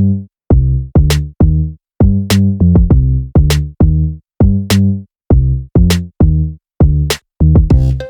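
Background electronic music: a drum machine beat with short, clipped bass notes repeating about twice a second.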